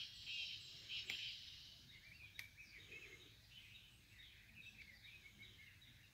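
Faint chirping of small birds, many short calls that are a little louder in the first second or so, with a couple of sharp clicks about one and two and a half seconds in.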